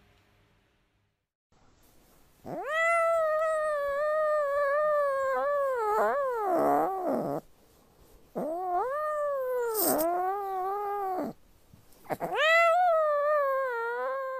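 A cat giving three long, drawn-out meows, one after another. Each swoops up at the start, then is held for several seconds with a wavering pitch; the first is the longest.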